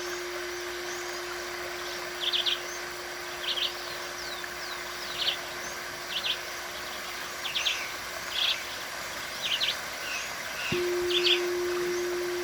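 Crystal singing bowl ringing with one pure steady tone, struck again near the end so that the tone sets in afresh. Over it, birds chirp in short bright bursts about once a second, above a steady background hiss.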